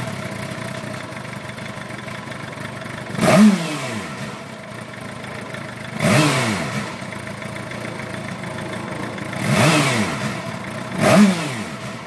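2008 Suzuki GSX-R 750's inline-four engine idling, blipped four times, each rev rising sharply and falling straight back to idle. The idle is not its normal idle: the bike is hard-starting and idling rough while hot after a short sit.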